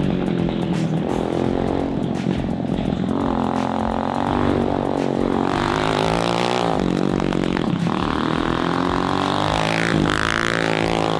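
The kart's 200cc single-cylinder four-stroke engine under way, revving up and dropping back about four times as it is driven.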